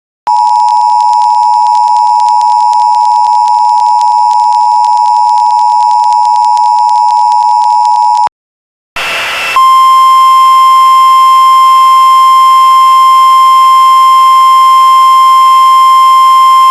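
Emergency Alert System two-tone attention signal, a steady two-note beep held for about eight seconds that cuts off suddenly. After a short gap and a brief burst of hiss, the NOAA Weather Radio warning alarm tone, a single steady tone over background hiss, runs for about eight seconds.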